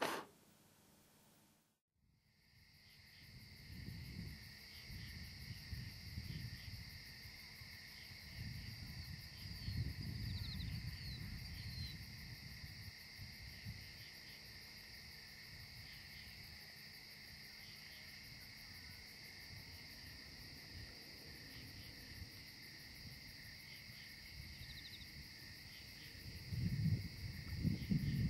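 A short puff of breath blowing out a candle, then a moment of silence. Then crickets or other night insects trill steadily in two high pitches, with gusts of wind rumbling on the microphone that swell loudest near the end.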